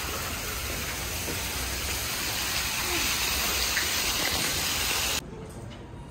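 Steady rushing of falling water, an even hiss with no rhythm. It cuts off suddenly about five seconds in, leaving a much quieter room.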